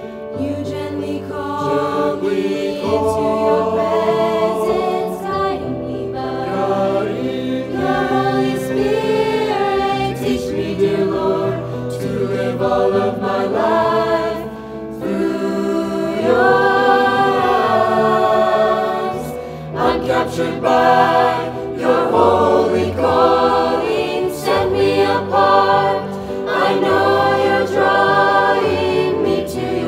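A mixed choir of men's and women's voices singing a sacred song in parts, phrase after phrase, with short breaks between phrases.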